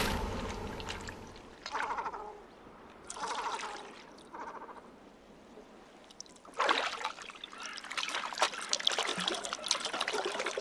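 Water splashing as a cormorant thrashes a large fish at the river surface. Three short bird calls come in the first few seconds, and the splashing picks up again about two-thirds of the way in.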